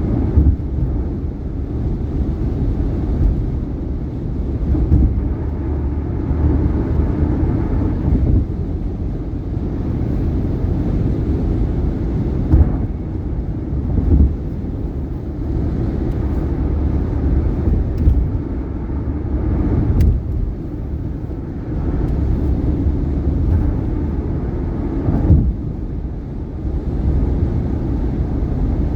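Steady tyre and road rumble from a 2018 Subaru Outback at highway speed, broken every few seconds by sharp thumps as the tyres cross bridge expansion joints.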